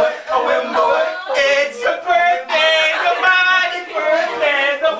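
Singing: a voice holds several long notes, some wavering in pitch, with no clear backing instruments.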